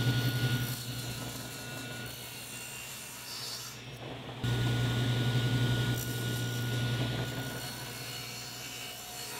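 Table saw running, its blade cutting a 3/8-inch-deep notch across a wooden leg for a tenon, the board pushed over the blade in passes. The cutting is louder near the start and again for a couple of seconds from about halfway, over the saw's steady hum.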